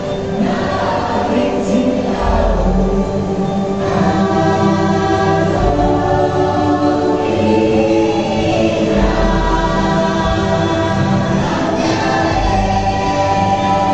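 Choral music: a choir singing long held chords that change every few seconds, over deep bass swells.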